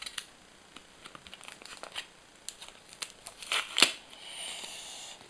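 Paper sticker packet being handled and torn open: scattered crinkles and clicks, a sharp loud tear a little under four seconds in, then a steady rustle.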